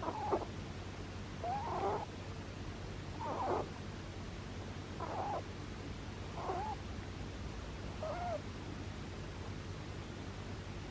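Pet rabbit snoring in its sleep: six short snores, one about every one and a half seconds, stopping after about eight seconds.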